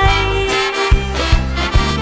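Music: a song with band accompaniment, held melody notes over a steady bass beat.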